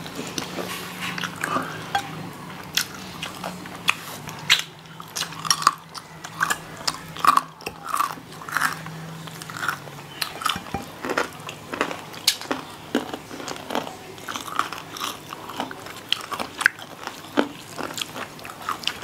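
Two people biting and chewing crispy fried chicken, with many short, irregular crunches of the fried coating. A faint low steady hum runs under the first half and stops about halfway through.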